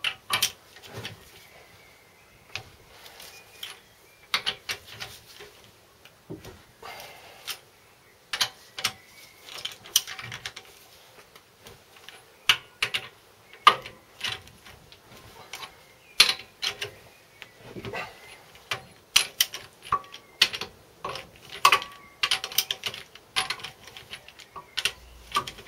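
Socket ratchet clicking and steel tools clinking in irregular runs of sharp clicks as the engine's cylinder head bolts are undone.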